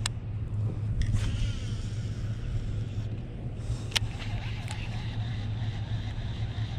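Steady low rumble throughout, with a few light, sharp clicks from a baitcasting reel being handled, the clearest about four seconds in.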